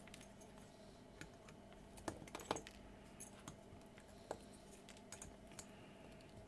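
Flush side cutters snipping the excess resistor leads off a freshly soldered circuit board: a few faint, sharp clicks at irregular intervals, the clearest about two seconds in.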